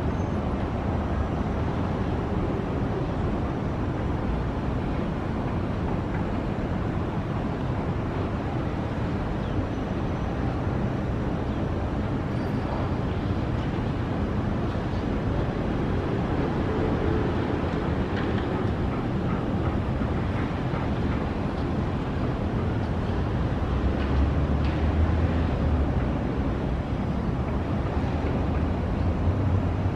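Steady low rumbling ambient noise without distinct events, swelling a little in the low end near the end.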